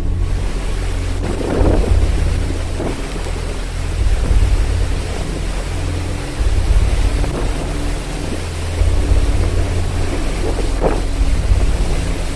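Storm wind buffeting the microphone in uneven gusts, over the rush of heavy seas breaking and foaming along a cruise ship's hull.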